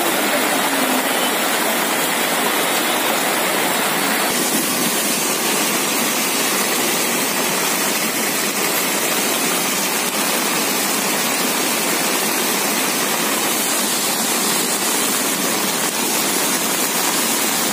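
Heavy rain pouring onto a wet, flooded street: a steady, even hiss.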